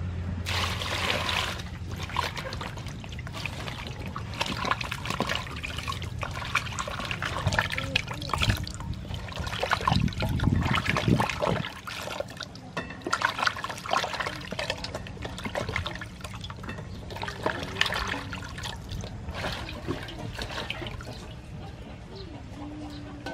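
Water splashing and dripping in a metal basin as cut bitter gourd pieces are rinsed by hand, in irregular sloshes and trickles.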